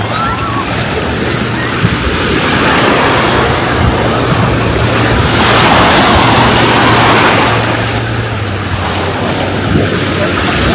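Ocean surf washing onto the beach, a rushing swell that grows loudest about halfway through and then eases, over a steady low mechanical hum.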